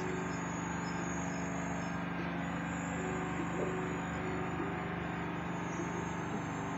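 Steady chirring of crickets and night insects over a low, even hum, heard through a television speaker.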